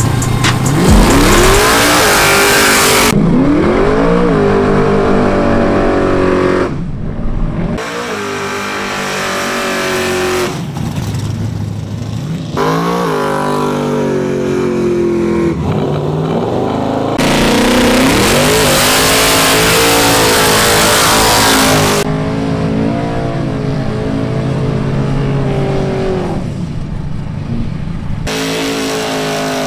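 Drag cars revving hard through burnouts: a nitrous small-block Ford Fox-body Mustang and a twin-turbo 1951 Ford pickup, engine revs climbing and dropping again and again, with long stretches of tyre-spin hiss.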